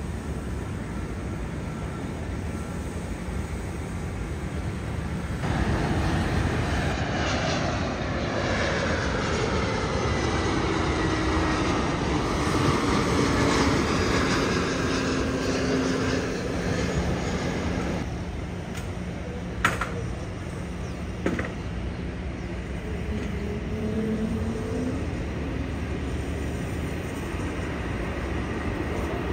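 Airbus A320neo's Pratt & Whitney geared turbofan engines on landing approach and touchdown: a steady jet rumble that grows louder about five seconds in, with engine whine falling in pitch as the airliner passes. Two sharp clicks come about two-thirds of the way through.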